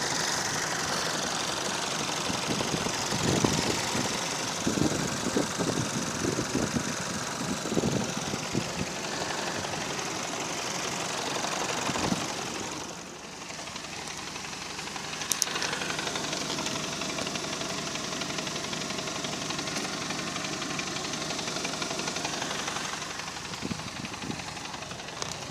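Car engine idling with a knock that comes on when the engine is hot and goes away when the clutch pedal is pressed; the owner suspects the flywheel. The sound dips briefly about thirteen seconds in.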